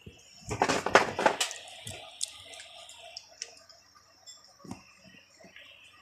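Hands working on a top-loading washing machine: a burst of clattering and rattling about half a second in, then scattered light clicks and knocks.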